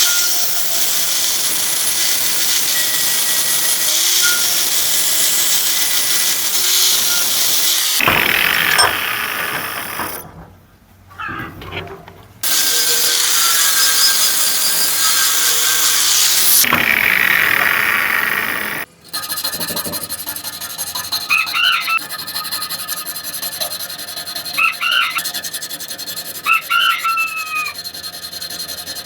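A power tool running against metal in two long spells, its motor pitch falling as it winds down after each. Then rhythmic hand rubbing strokes on metal with a few short high squeaks.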